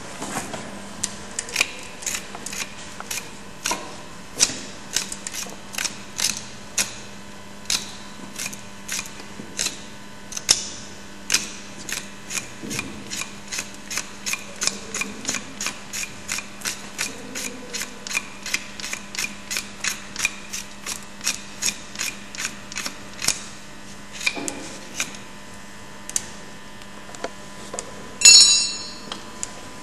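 Hand tools tapping on a cow's hoof during hoof trimming: steady sharp taps, a little over two a second, that thin out near the end, then one louder ringing metal clank.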